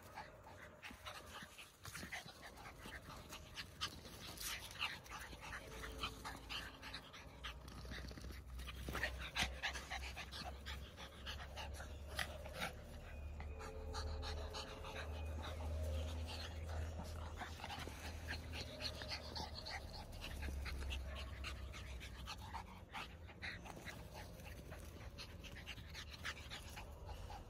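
Small dogs panting and scuffling on grass as they play, with many short rustles and patters of paws, over a low rumble.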